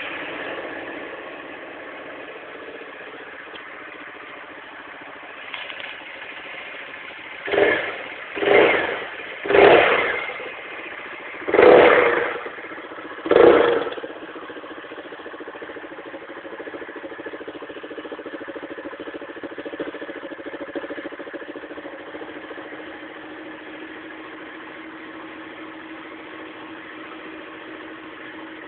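Motorcycle engine idling, blipped five times in quick succession with short throttle revs about a third of the way in, then back to a steady idle.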